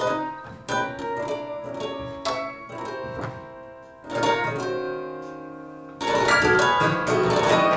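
Music on a plucked string instrument: single notes struck and left to ring, becoming fuller and louder about six seconds in.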